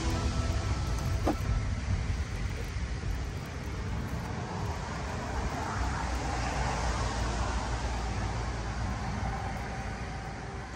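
Steady low rumble and hiss of outdoor background noise, swelling slightly a little past the middle.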